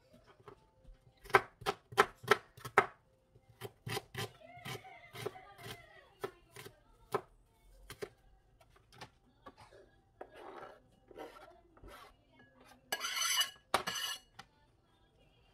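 Kitchen knife chopping an onion on a plastic cutting board: a run of sharp knocks, closest together about one to three seconds in, then rasping scrapes near the end as the knife pushes the chopped pieces off the board.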